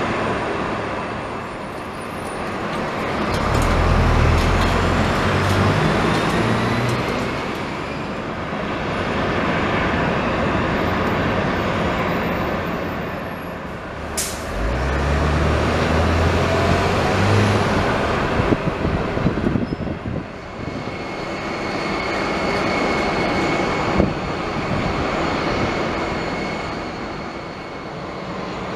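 Pushback tug's engine revving up and down in steps, twice, as it pushes an Airbus A320 back on its towbar, over a steady roar of airport ramp noise. A steady high-pitched whine joins about two-thirds of the way through.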